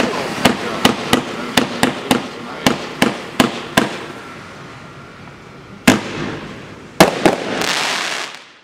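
Dominator 'July's Surprise' 200-gram firework cake firing red and white comets out of a hissing fountain, with about ten sharp pops, roughly three a second, over the first four seconds. Then comes a single loud bang, two more bangs about a second later, and a dense white crackle that cuts off suddenly at the end.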